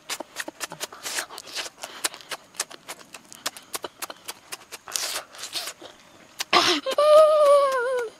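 Close-up mouth sounds of eating roasted shrimp: chewing with rapid wet smacks and clicks, and a few breaths through the nose. Near the end comes a long hummed 'mmm' with a falling pitch.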